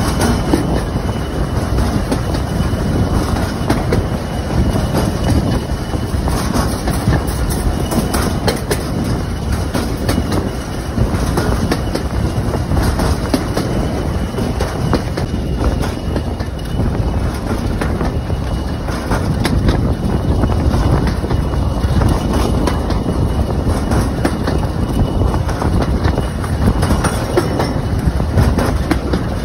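A heritage railway train running along the track: a steady, loud rumble with many light clicks from the wheels and track.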